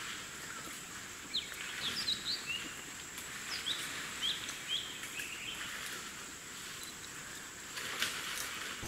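Forest ambience: birds giving short, quick chirps over a steady high-pitched hiss, with one sharp click near the end.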